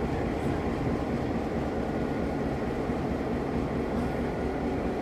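Railway turntable rotating under its 25-horsepower electric drive motor with a diesel-electric locomotive aboard: a steady low mechanical rumble with faint thin whining tones above it.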